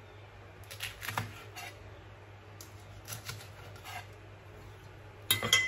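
Kitchen knife chopping Scotch bonnet pepper on a wooden cutting board: scattered knocks of the blade on the board, with a quick cluster of louder knocks near the end.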